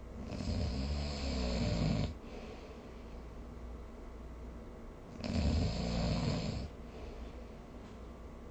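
A sleeping person snoring: two long, low-pitched snores, one at the start and one about five seconds later, each lasting one and a half to two seconds.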